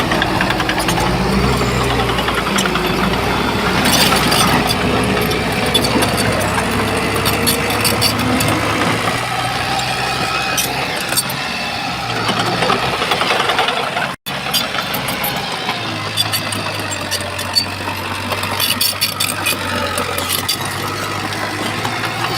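Shantui bulldozer's diesel engine running hard as the machine works, with repeated metallic clanks and rattles over the engine note. The sound cuts out for an instant about two-thirds of the way through.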